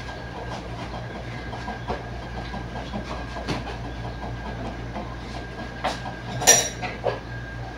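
Cookware being handled at a kitchen stove: scattered light knocks and clinks of metal pots over a steady hum, with one loud ringing metal clank about six and a half seconds in.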